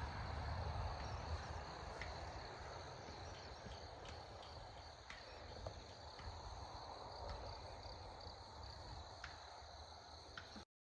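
Faint outdoor ambience of insects chirring steadily in several high bands, over a low wind-like rumble, with a few light clicks; it cuts off to silence near the end.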